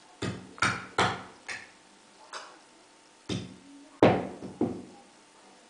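About eight sharp knocks at irregular intervals, each ringing briefly, the loudest about four seconds in, over a faint steady hum.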